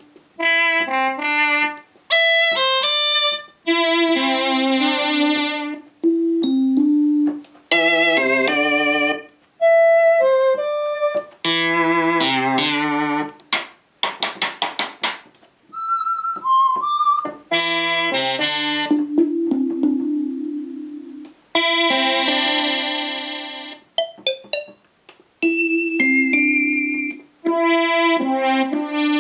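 Casio CZ-1000 phase-distortion synthesizer stepping through its patches: short phrases of keyboard notes played on one sound after another, each cut off before the next, with electric-piano, organ-like and brighter buzzy tones.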